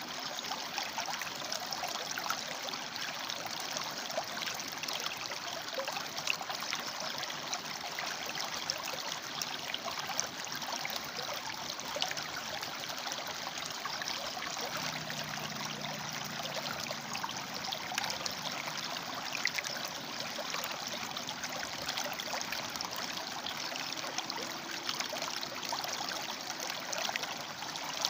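River water flowing over and between rocks: a steady rushing with small splashes and gurgles.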